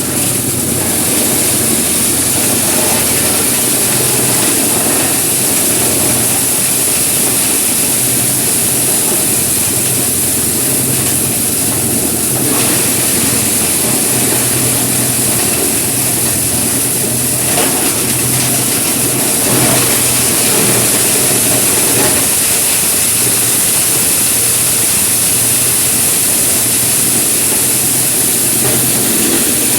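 Engine-driven livestock feed and manure grinding machine running steadily: a low engine hum under a loud, even hiss.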